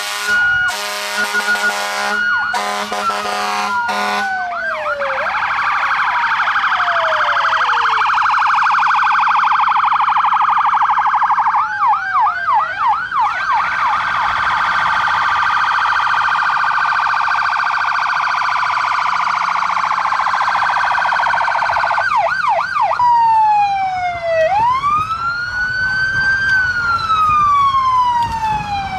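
Fire engine and ambulance sirens sounding together, overlapping wails that rise and fall and bursts of fast yelping sweeps. There are a few short, loud horn blasts in the first four seconds.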